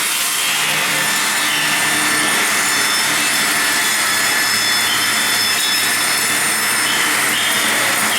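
TT400-3000 twin-blade circular log saw cutting through a log: a steady, loud sawing noise with thin high tones from the blades held throughout.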